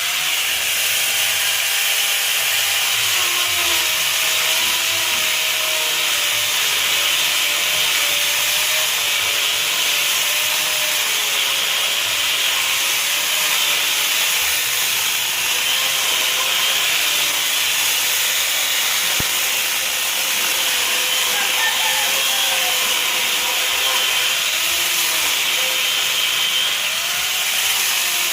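Mini chainsaw cutting through wood without a break. The motor's tone wavers up and down as the chain bites into the log.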